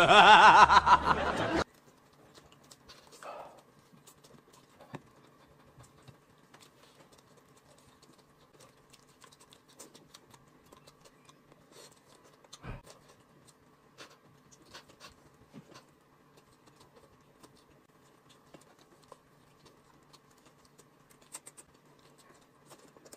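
Faint clicks, scratches and rustles of hands pulling apart roast chicken and peeling the plastic casing off a sausage. There is one soft thump about twelve seconds in, over a faint steady hum.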